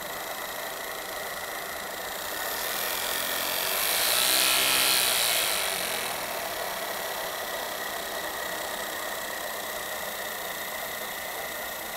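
Saito T2DR twin-cylinder model steam engine running on steam from a small boiler: a steady hiss of steam with a light mechanical whirr. It grows louder and more hissy for a few seconds in the middle, then settles back to a steady level.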